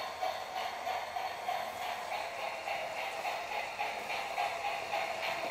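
Toy electric steam train running on its plastic track: the steady whir of the locomotive's small motor and gears, with a regular pulsing about three or four times a second.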